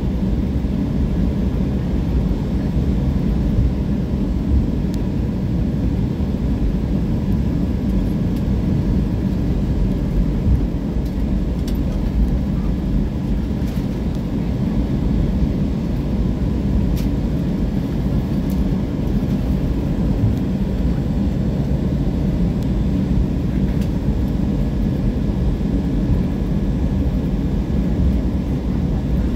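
Cabin noise of an Airbus A320 taxiing: a steady low rumble from the jet engines at idle and the airframe rolling along the taxiway, with a couple of faint steady whining tones above it.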